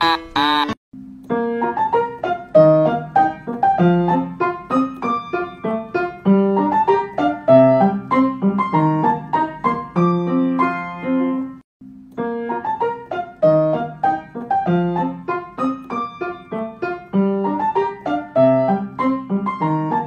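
Background piano music: a light tune of quick separate notes, breaking off briefly about twelve seconds in before the phrase starts over.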